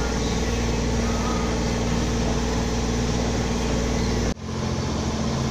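Sailboat's motor running steadily under way, a constant hum over a low rumble. It breaks off abruptly about four seconds in and picks up again with a slightly different tone.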